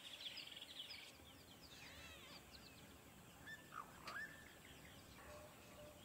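Faint birdsong: many short chirps and sweeping whistles, with a couple of slightly louder calls a little past the middle.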